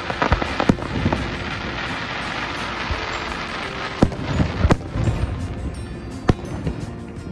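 Aerial fireworks going off: a burst of sharp bangs at the start, a few seconds of crackling, then more bangs about four, five and six seconds in.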